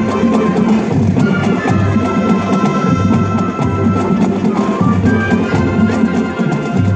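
Marching band playing: brass and woodwinds holding sustained notes over a steady marching drum beat.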